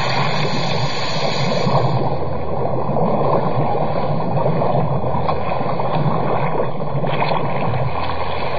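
Radio-drama sound effect of churning sea water for a ship going down, a steady rushing noise with a low rumble that comes and goes.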